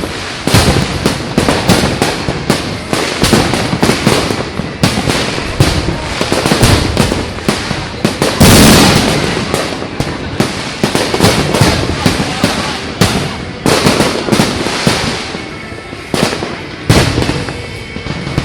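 Fireworks going off in a dense, rapid barrage of sharp bangs and crackles, with the loudest burst about eight and a half seconds in.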